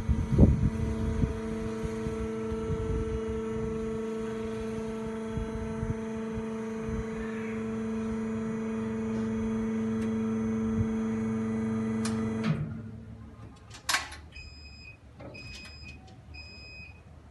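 Small home lift (dumbwaiter) running with a steady hum that stops about twelve seconds in. Then a click, followed by a series of short electronic beeps.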